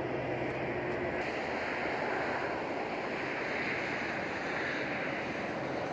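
Steady rushing noise of motorway traffic, with the low hum of an idling engine that drops away about a second in.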